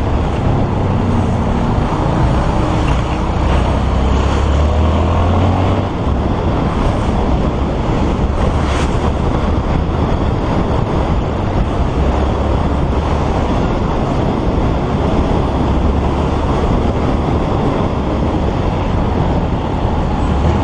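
Motorcycle being ridden through traffic: steady wind rush on the bike-mounted camera's microphone with the engine running beneath, plus passing road traffic.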